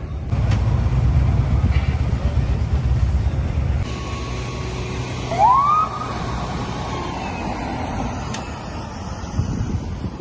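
Low vehicle engine rumble, louder for the first four seconds, then a single short police siren whoop rising in pitch about five and a half seconds in.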